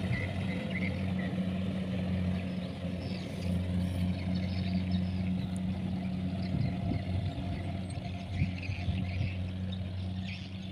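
Kubota combine harvester's diesel engine running steadily as it cuts rice, a constant low hum that grows a little fainter near the end.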